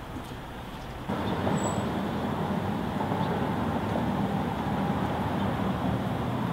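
Steady city street ambience with a low vehicle engine hum, cutting in abruptly about a second in over a quieter hum.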